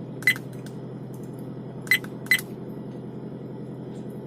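Three short button beeps from the Viofo A129 Duo dash camera as its menu is stepped through: one just after the start, then two in quick succession about two seconds in. A steady low hum runs under them.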